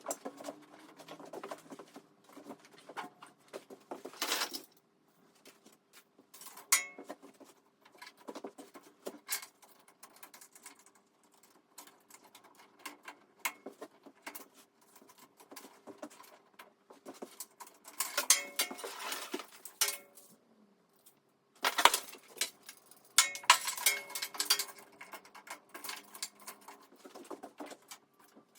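Intermittent clicks, rattles and clatter of hard parts being handled during assembly, with two busier spells of clattering about two-thirds of the way in. A faint steady hum runs underneath.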